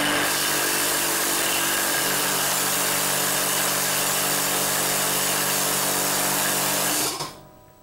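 Converted direct-drive air compressor pump working as a vacuum pump, its electric motor and piston running loud and steady; it is switched off about seven seconds in and spins down quickly.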